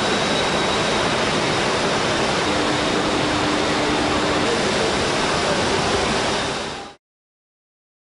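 Steady, loud industrial roar of a glass melting furnace and its batch-charging machinery, with a faint steady high whine and a brief low hum in the middle. It fades and cuts off sharply near the end.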